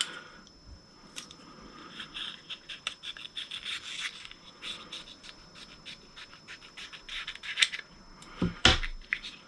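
Scissors snipping and scraping through the leathery shell of a ball python egg, a quick run of small snips and rubs, with a louder knock near the end.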